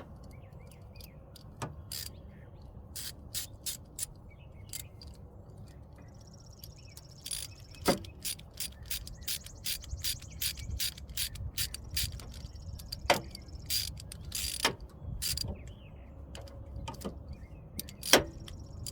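Hand tools clicking and knocking on metal while a new battery ground terminal is fitted to its cable: irregular sharp clicks, busiest in the second half.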